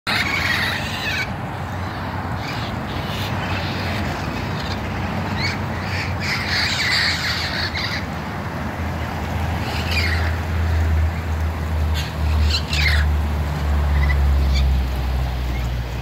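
A large flock of parrots squawking with many overlapping harsh calls. A low rumble builds up in the second half.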